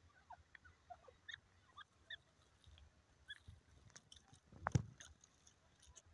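Grey francolin dust-bathing in dry soil: faint scratching and rustling of feathers and dirt, with one louder rustling thump about three-quarters through. Faint, scattered short bird chirps run underneath.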